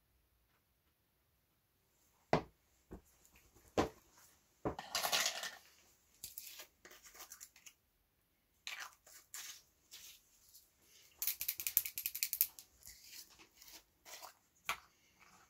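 Small plastic paint jars being handled on a cutting mat: a few sharp knocks as pots are set down, and several bursts of scratchy scraping and rubbing as jars and screw lids are worked.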